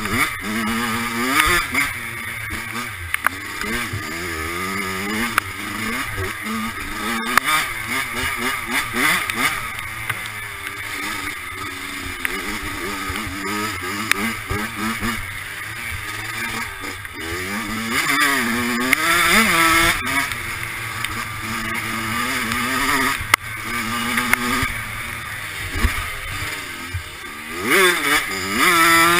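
Dirt bike engine revving hard, its pitch climbing and dropping again and again as the throttle is opened and closed through the gears, over rushing noise. A few sharp knocks break through.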